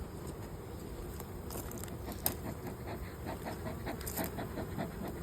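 Honeybees buzzing around an open hive, a steady low hum, with a few light clicks about halfway through.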